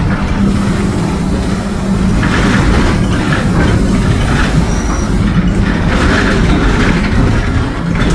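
Mercedes-Benz OF-1722M bus (Caio Apache Vip 2 body) running on the road, with a steady engine and road noise and a low drone from its growling differential.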